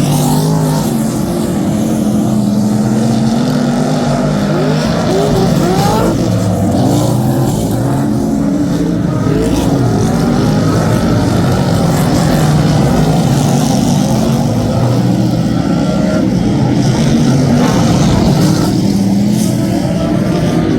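Several Superstock speedway cars' V8 engines running together, a dense steady engine noise with pitches rising and falling as the cars accelerate and lift off.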